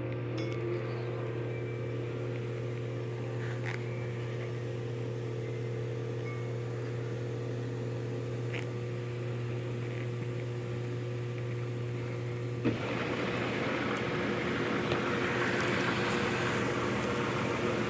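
Sundance spa pump motor running with a steady hum. About thirteen seconds in there is a click, the hum drops away and a louder rushing hiss takes over.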